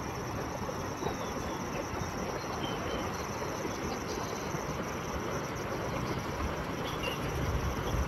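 Steady rushing outdoor noise, with a few faint high chirps now and then.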